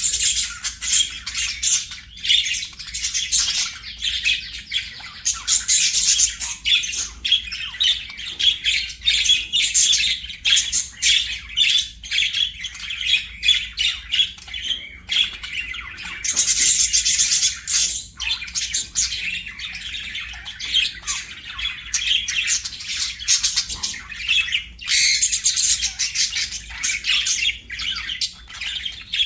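Budgerigars chattering and chirping without pause, quick high twitters and warbles mixed with harsher squawks.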